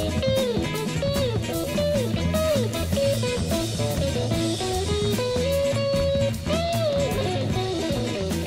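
Background music: a blues-style guitar melody with notes that bend up and down in pitch, over bass and drums.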